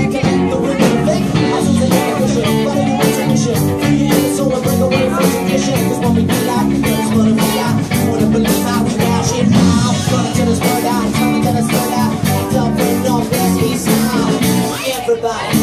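Live cover band playing upbeat dance music with a steady beat.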